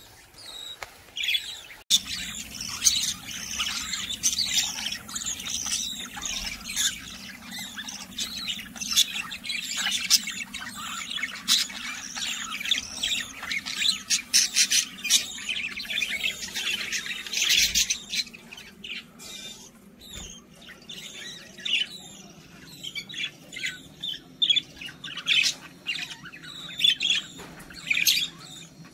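A flock of caged budgerigars chattering with many overlapping chirps and squawks. The calls are densest through the first half and thin out after about eighteen seconds.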